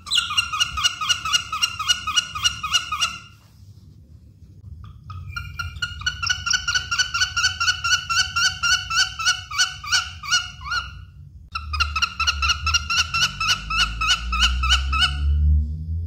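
Honey buzzard calling: rapid series of short, high, repeated notes, about five a second, in three runs with short pauses between them.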